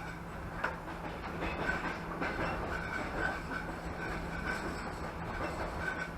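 Passenger train carriage running along the track, heard from inside: a steady rumble and hum with irregular clicks and knocks from the wheels on the rails.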